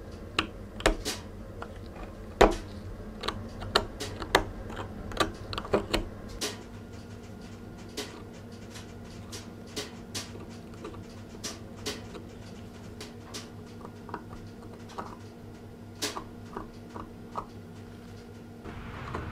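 Steel pick scraping and picking rust scale off a rusty iron nail on a wooden board: a run of sharp, irregular clicks and scratches, thick during the first six seconds and sparser after, over a low steady hum.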